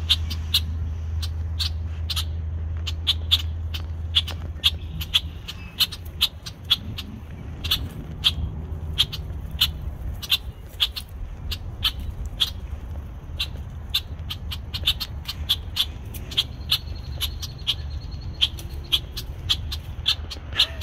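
Male red-winged blackbird giving a long series of short, sharp alarm calls, about two a second. It is defending its nesting area against intruders.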